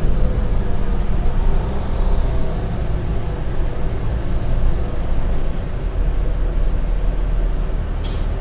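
Cummins ISL9 diesel engine and drivetrain of a 2010 New Flyer D40LF city bus running under way, heard from inside the passenger cabin: a steady low rumble with a faint whine that wavers in pitch. There is a brief sharp click near the end.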